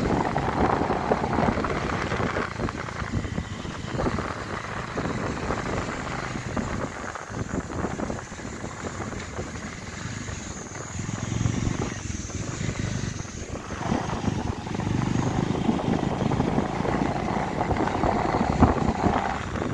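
Motorcycle engine running while riding, mixed with wind rushing over the phone's microphone; the sound drops for a few seconds midway and then builds again.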